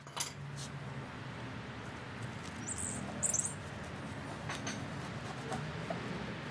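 Outdoor garden ambience: a steady hiss of background noise with two short, high bird chirps about three seconds in, and a few faint clicks.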